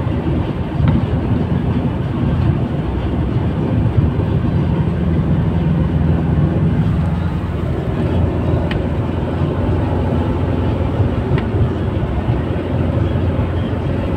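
Steady low rumble of a moving vehicle heard from inside the cabin, with tyre and engine noise at highway speed.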